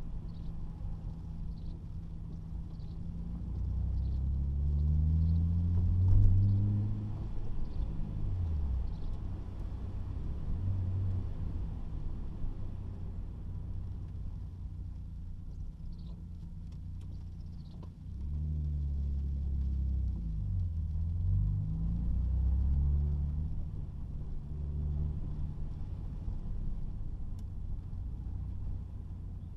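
Nissan 300ZX's V6 engine heard from inside the cabin while driving. It speeds up twice, about four seconds in and again about eighteen seconds in, its note rising in steps through the gears, with steady cruising in between.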